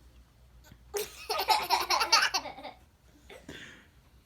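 A girl laughing: a run of giggles lasting about two seconds, starting about a second in, with a short, fainter vocal sound near the end.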